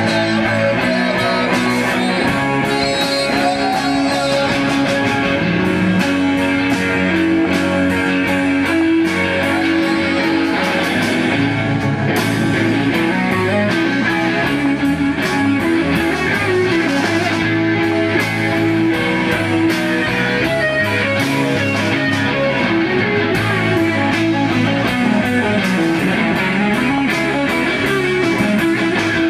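A live rock band playing: electric guitars over a drum kit, with a lead guitar bending notes.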